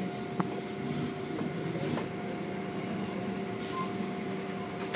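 Automatic car wash machinery running: a steady mechanical hum from the tunnel's brushes and cloth curtains working over a foam-covered car, with a short burst of hiss about three and a half seconds in.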